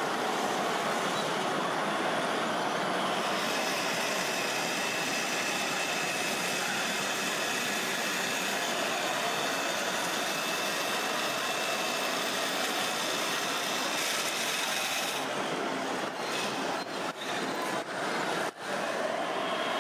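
Radio-controlled scale model trucks and construction machines running: a steady mechanical noise with faint steady whines in it. The sound briefly drops out several times near the end.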